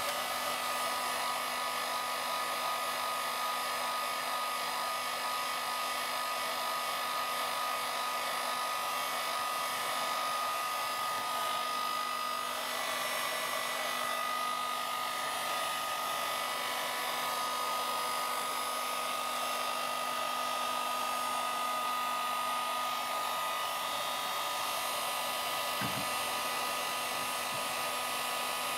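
Electric hot-air blower running steadily, a rush of air with a held whine, heating the double-sided tape under a piezo drum sensor to soften it. A small knock near the end.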